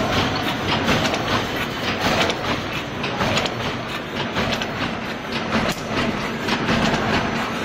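Automatic wire mesh welding machine running steadily: a continuous mechanical clatter of repeated knocks as the welding heads cycle and the mesh advances.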